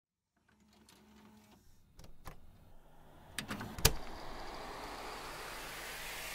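Build-up sound effect before the track drops: a few sharp clicks, the loudest about four seconds in, then a noise sweep that rises slowly in pitch and grows louder.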